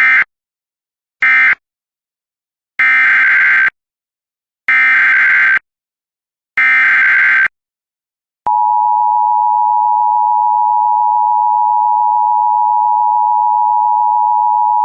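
Emergency Alert System signalling tones: two short end-of-message data bursts, then three longer SAME header data bursts, and from about eight and a half seconds in the steady two-tone EAS attention signal.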